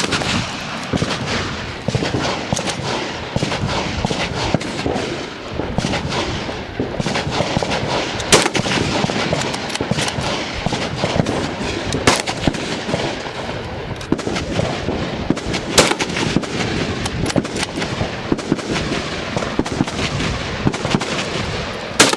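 Gunfire at a busy shooting range: a steady crackle of shots from many firearms, with a few louder, nearer single rifle shots standing out several seconds apart.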